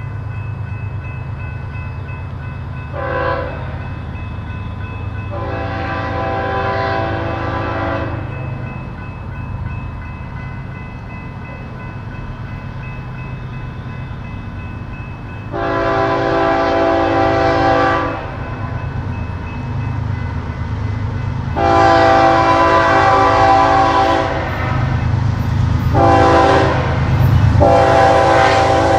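BNSF freight train's diesel locomotives approaching with a low rumble that grows louder, the lead locomotive sounding its multi-chime air horn in a series of blasts: a short toot about three seconds in, then several long blasts. The last four blasts, long, long, short, long, follow the pattern of the grade-crossing signal.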